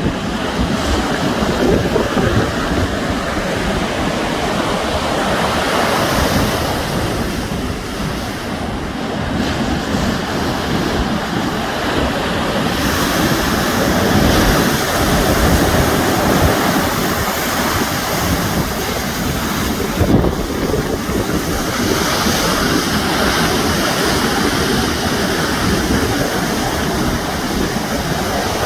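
Sea waves breaking and washing ashore in a steady, swelling rush, with wind buffeting the microphone.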